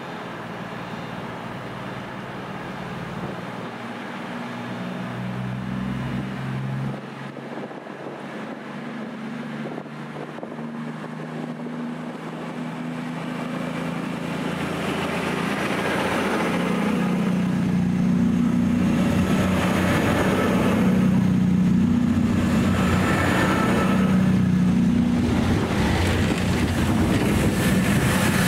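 Class 221 Super Voyager diesel-electric multiple unit moving through the platform, its underfloor diesel engines giving a steady drone. The drone grows louder about halfway through and swells and fades as the carriages come past.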